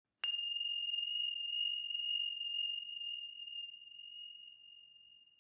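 A small metal bell-like instrument struck once, ringing with one clear high tone that fades slowly over about five seconds; its brighter overtones die away within the first couple of seconds.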